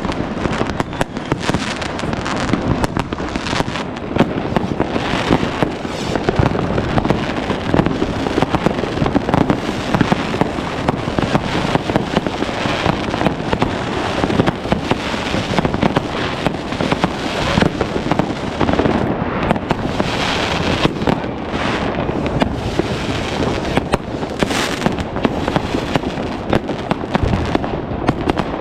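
Many amateur New Year's Eve fireworks going off at once: rockets, firework batteries and firecrackers make a dense, unbroken clatter of bangs and crackles.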